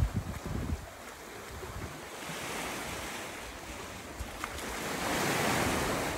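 Sea surf washing in over rocks and a sandy shore, with wind buffeting the microphone in the first second; the wash swells louder near the end.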